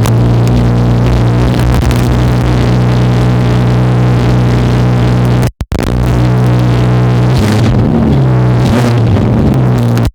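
BMW 340i's inline-six engine running steadily after being started. The sound cuts out for an instant about five and a half seconds in, and its note changes about two seconds before the end.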